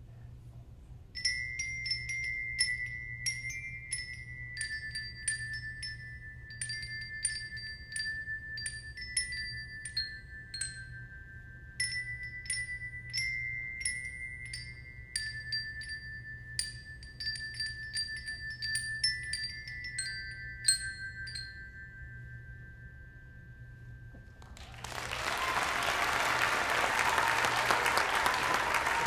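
A small ensemble of glockenspiels struck with mallets, playing a slow tune of single high ringing notes that sustain and overlap. After a short pause, audience applause near the end.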